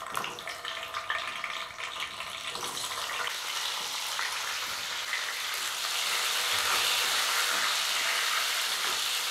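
Small whole peeled potatoes frying in hot mustard oil. The sizzle builds over the first few seconds as more potatoes go in, then settles into a steady hiss.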